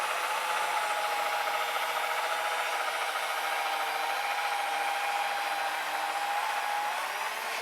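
RC snowblower's brushed 550 electric motor whining as it drives the auger, over a steady rushing noise. The whine sags slightly and drops away shortly before the end.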